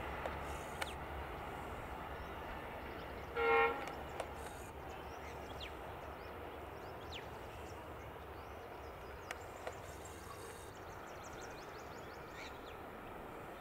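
Distant passenger trains running with a steady rumble, and a diesel locomotive horn giving one short toot about three and a half seconds in. Faint bird chirps.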